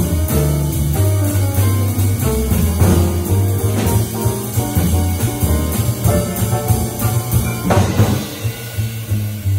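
Live jazz quartet of piano, electric guitar, upright bass and drum kit playing, with the drums to the fore over moving double-bass notes and a cymbal crash near the end.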